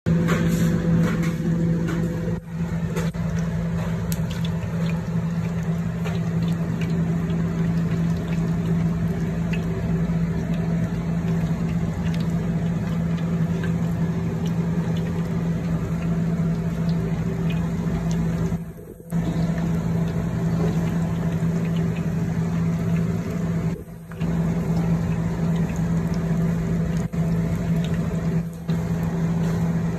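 Pork spare ribs deep-frying in hot oil, a steady sizzling and bubbling, over a constant low hum. The sound breaks off briefly twice.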